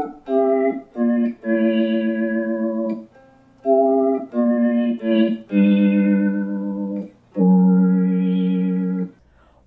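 Electric guitar played through an Electro-Harmonix Mono Synth pedal, giving a monophonic synthesizer tone. There are two phrases of three quick notes each followed by a long held note, then one more long held note.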